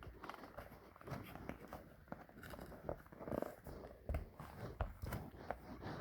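Packaging being opened by hand: irregular crinkling, crackling and small clicks of plastic and cardboard being handled and pulled apart.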